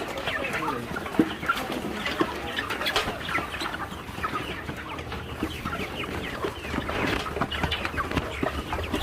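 A flock of chickens clucking, many short overlapping calls at once, with a low steady hum underneath.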